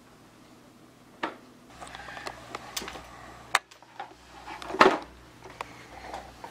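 Large plastic CAT toy dump truck pushed across carpet: its wheels rumble low while the hollow plastic body clacks and knocks, the loudest knock a little under five seconds in.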